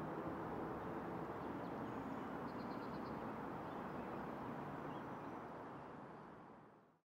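Faint outdoor background noise, steady and even, with a brief quick chirp from a bird about two and a half seconds in; it fades out near the end.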